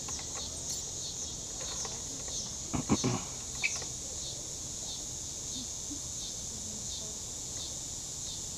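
Insects buzzing steadily in the surrounding trees, with a faint chirp repeating about twice a second. A few sharp knocks, the loudest sound, come about three seconds in, with a short click just after.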